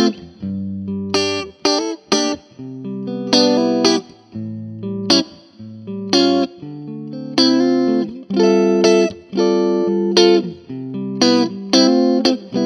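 Electric guitar played through an Orange Crush Pro 60 amp on its clean channel with reverb: a string of strummed chords, some short stabs and some left ringing out.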